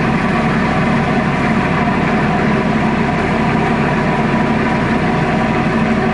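Tugboat's diesel engine running steadily under load while towing, a constant drone with no change in pitch or level.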